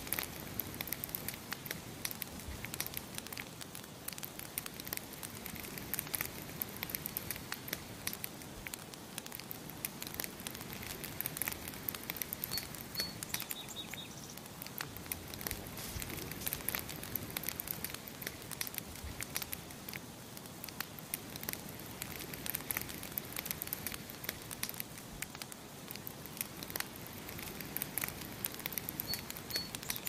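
Wood campfire crackling steadily with frequent sharp pops and snaps. A small bird gives a brief high chirp twice, about halfway through and again near the end.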